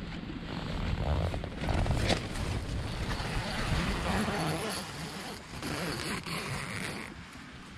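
Nylon tent door being unzipped and pushed open by hand, the fabric rustling and crumpling, with a quick zip run about one and a half to two seconds in.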